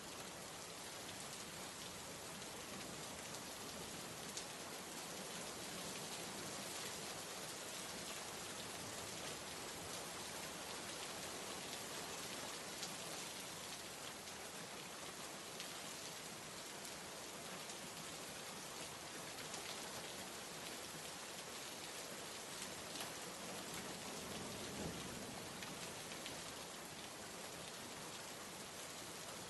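Steady rain falling on a surface, an even patter of drops from an ambient soundscape, with a brief low rumble near the end.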